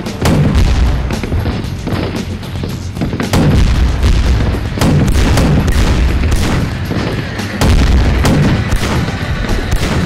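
Cinematic battle sound effects over background music: deep explosion booms every few seconds and sharp gunshot cracks.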